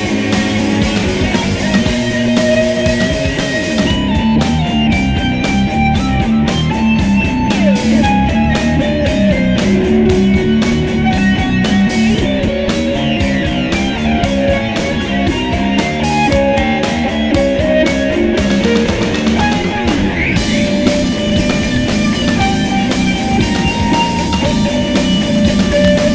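Heavy rock music in a metalcore style, with electric guitar and a drum kit. Through the middle the band plays a choppy stop-start section, and it returns to a full, continuous sound about twenty seconds in.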